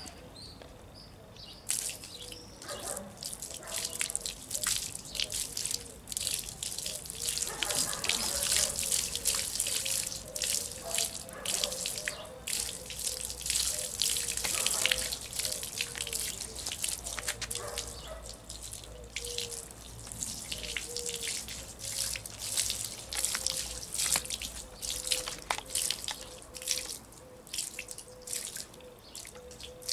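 Water splashing and sloshing in a plastic tub as leather boots are dunked and moved in it, with water spilling over the rim. Irregular splashes and drips set in about two seconds in and keep going.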